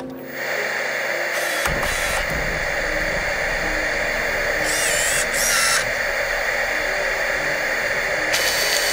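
Electronic soundtrack music: a steady, harsh buzzing drone like a drill starts just after the beginning, and a deep bass joins under it about a second and a half later.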